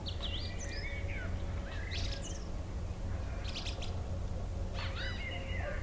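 Birds chirping and singing: several short bursts of quick rising and falling notes, over a low steady hum.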